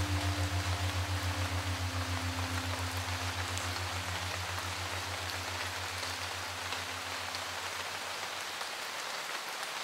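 Steady hiss of rain falling on and around a covered shelter. Over it, the last low note of a music track wavers quickly and fades away during the first several seconds.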